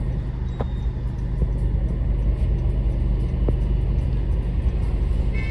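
Steady low hum and rumble of a car, heard from inside its cabin. A car horn starts honking right at the end.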